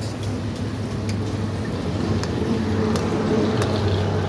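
A steady low machine hum, with a few light clicks over it.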